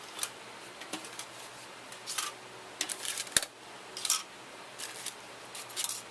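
Small card packages being set and slid by hand onto the thin metal shelves of a stainless steel vending machine: scattered light scrapes and clicks, with one sharper click a little past halfway.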